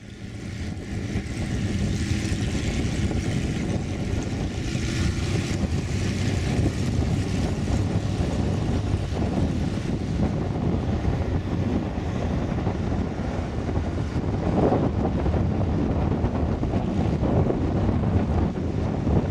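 Messerschmitt Bf 109's Daimler-Benz DB 601 inverted V12 engine running steadily with its propeller turning. The sound fades in over the first two seconds.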